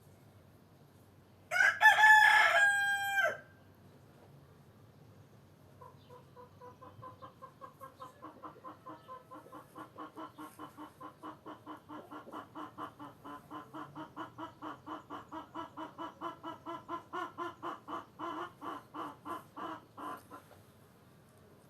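A rooster crows once, loud and about two seconds long. A few seconds later a chicken starts a long run of even, rapid clucks, about three or four a second, growing louder before stopping near the end.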